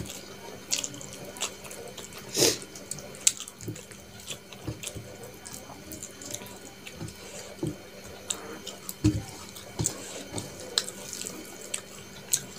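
Fingers mixing rice with chicken curry on a steel plate, giving irregular wet squelches and clicks. The loudest snaps come about two and a half and nine seconds in.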